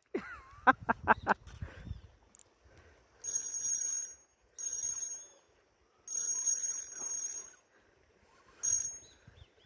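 Spinning reel's drag giving line to a hooked traíra in four short bursts of a high buzz, each half a second to just over a second long, with quiet gaps between. A few sharp knocks come in the first second or two.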